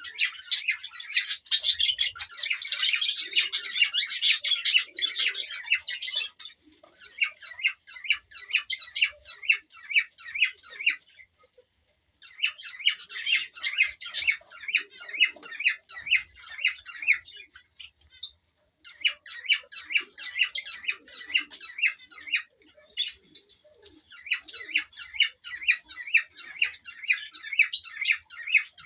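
Male cockatiel singing its courtship song of rapid, repeated chirps and whistles, which the bird uses to stir the hen to mate. It comes in runs of a few seconds with short pauses between them.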